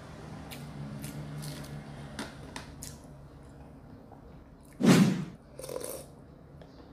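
Close-up eating sounds: a few light clicks of a metal spoon against the plastic noodle cup and food container, then a loud slurp from a spoonful of cup-noodle soup about five seconds in, followed by a shorter, softer one.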